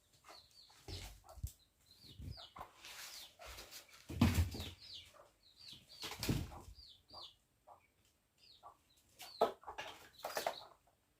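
Chicks peeping over and over in short, high, falling peeps, broken by several brief bursts of wing flapping and scuffling as they play.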